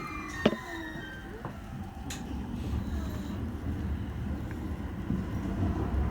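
Subway train running in a tunnel: a low rumble that gradually grows louder, with a couple of sharp clicks in the first few seconds.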